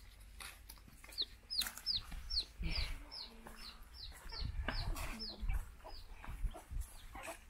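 Domestic chick peeping repeatedly: short, high peeps that each drop in pitch, about three a second, from about a second in until past five seconds.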